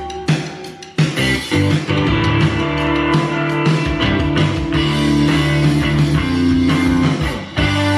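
Guitar-led rock music with a steady bass line, played back through the LG US60TR 5.1 soundbar and wireless subwoofer as an audio demo. It drops away briefly just before the one-second mark and again near the end, coming back in sharply each time.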